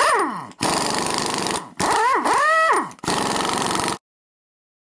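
Power-tool sound effects: a whine falling in pitch, a stretch of steady rattling, then a whine that rises, holds and falls away, followed by another rattle. The sound cuts off suddenly about four seconds in.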